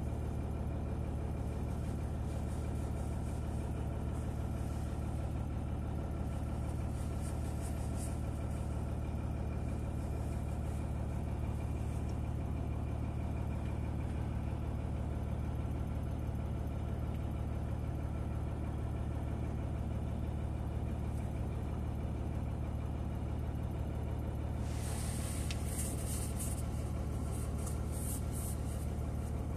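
A steady low machine hum, even in level throughout. Near the end comes a brief rustling hiss with a few light ticks.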